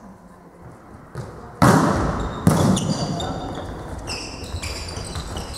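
Volleyball struck hard twice, about one and a half seconds in and again under a second later, each hit echoing in the sports hall, followed by short high squeaks of sports shoes on the hall floor.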